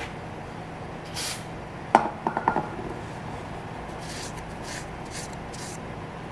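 A short hiss from an aerosol can of brake cleaner, then a sharp clack with a few lighter knocks as the can is put down on the wooden bench, followed by several short scuffs of a paper towel wiping oil off the refrigeration compressor's body.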